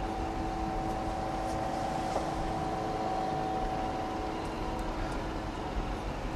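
Berner Oberland Bahn narrow-gauge electric train, led by an ABeh 4/4 motor coach, rolling slowly past: a steady electric hum from the traction equipment over the low rumble of the wheels on the rails.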